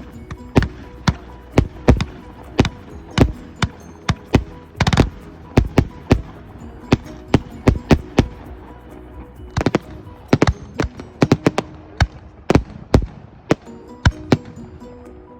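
Fireworks bursting overhead: a rapid, irregular string of sharp bangs, often several a second, with a thicker cluster about five seconds in and again around ten seconds. Music plays steadily underneath.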